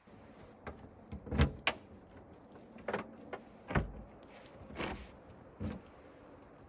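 A series of about seven knocks and scrapes, irregularly spaced, the loudest about a second and a half in.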